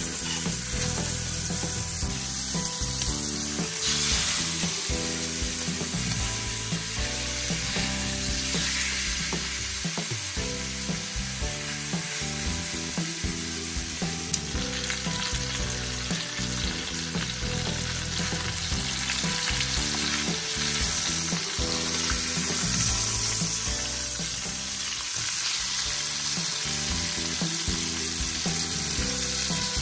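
Beef steaks searing in butter in a hot ridged cast-iron grill pan: a steady, fairly loud sizzle and spatter of fat.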